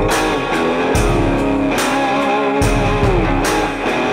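Background rock music led by guitar, with bass notes recurring about once a second.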